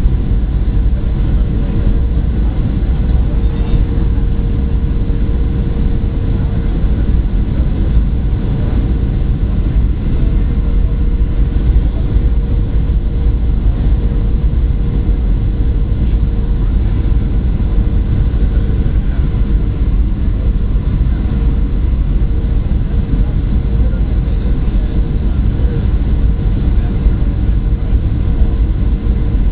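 Boeing 737-800 cabin noise on approach: the steady rush of airflow and the CFM56 engines, with a steady hum running through it.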